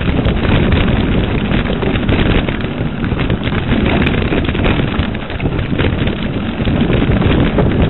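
Wind buffeting the microphone as a mountain bike speeds down a rough dirt trail, with the bike's steady clatter and many small knocks and rattles over the ground.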